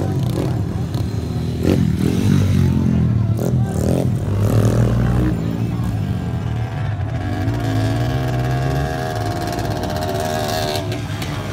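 125cc enduro motorcycle engines revving and running along the dirt track, their pitch rising and falling as the throttle opens and closes. A few clattering knocks in the first half.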